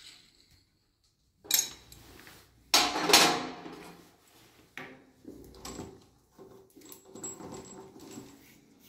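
Metal plumbing fittings, chrome angle valves and braided hoses, handled against a tiled wall: a few sharp metallic clanks, the loudest about three seconds in, then lighter clinking and rattling.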